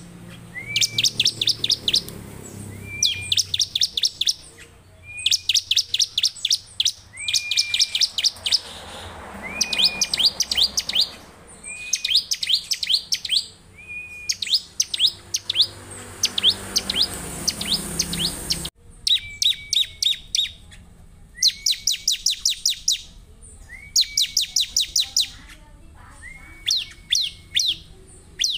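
Bar-winged prinia (ciblek) singing over and over, in a sustained bout. Each phrase is a short clear note followed by a fast run of five or six high, sharp chips, and the phrases repeat about every two seconds.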